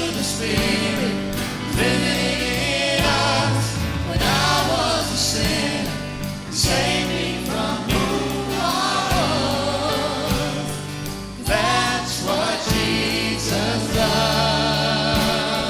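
A vocal group sings a Christian praise song in long, wavering held notes over instrumental accompaniment.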